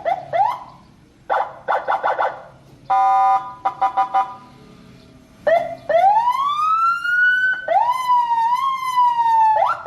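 Senken CJB100BD electronic siren cycling through its tones. It gives short rising chirps and quick pulsed bursts, a brief steady horn blast about three seconds in, then a long rising wail about six seconds in. A wavering held tone follows and breaks into chirps again near the end.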